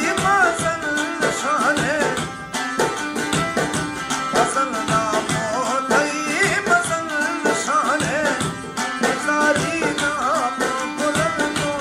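Background music: a wavering melodic line over a fast, steady drum rhythm, in a folk style.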